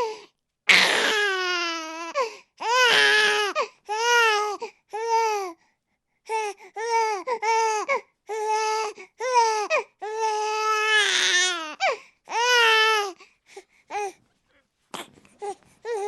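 A baby crying in repeated wailing bursts, each cry broken off by a short gap for breath. Over the last few seconds the cries become short and sparse, trailing off into brief whimpers.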